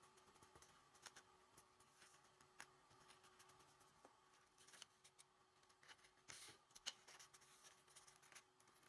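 Near silence with faint scattered ticks and rustles of paper being handled as the points of a paper pinwheel are glued to its centre, over a faint steady hum.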